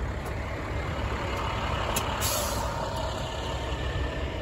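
Utility bucket truck running as it drives past, a steady low engine rumble, with a short sharp hiss about two seconds in.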